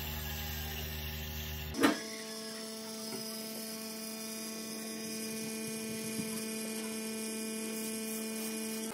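A steady electrical hum. A sharp click just under two seconds in, after which the hum goes on higher and thinner with several even tones.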